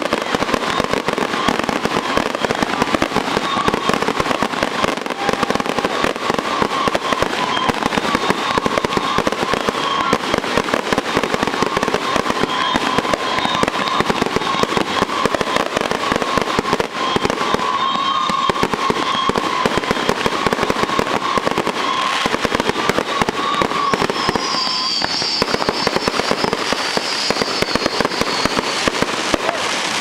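Fireworks display: a dense, unbroken barrage of bangs and crackle from many aerial shells bursting at once. A steady whistling tone runs through most of it, and a higher whistle comes near the end.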